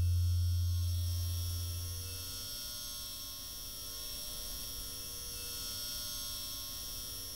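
A low electrical hum from the intro's sound effect, fading away over the first two seconds or so, over faint steady high-pitched tones.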